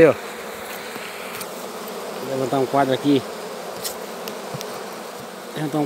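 A colony of honey bees buzzing steadily on the exposed frames of an opened hive, a constant hum.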